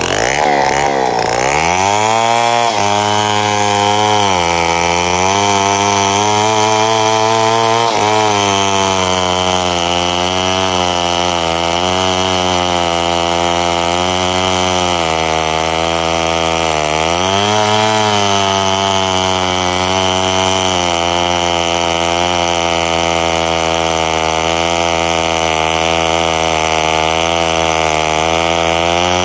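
Chainsaw running hard through a cut, its engine note sagging under load and picking back up several times, most deeply near the start and again about two-thirds of the way through.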